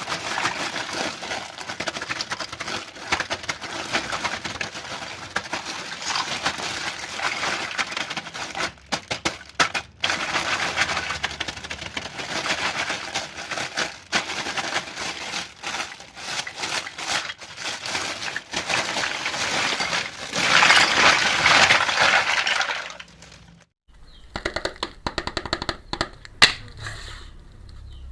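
Plastic packaging and small plastic toy pieces being handled during an unboxing: dense crackling and crinkling with small clicks, loudest for about two seconds near the end. It then cuts abruptly to sparser, lighter clicks.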